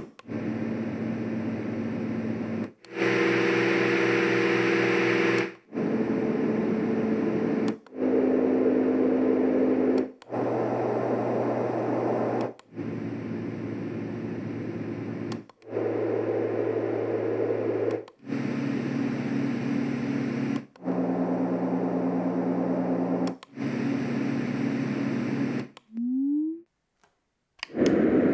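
LectroFan Classic white noise machine's speaker stepping through its fan sounds, about ten in a row, each lasting roughly two and a half seconds before a button press cuts to the next. Each is a steady whoosh with a low hum of a different pitch. Near the end a short rising tone is followed by a moment of silence, then a different noise starts.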